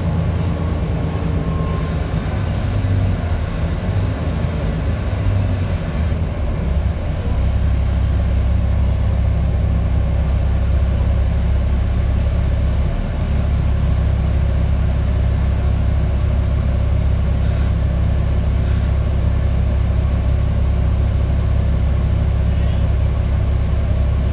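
Volvo B10TL double-decker bus's six-cylinder diesel engine heard from inside the passenger cabin as the bus slows and stops. A hiss of air comes about two seconds in and lasts a few seconds, typical of the air brakes. The engine then idles steadily while the bus stands at the stop.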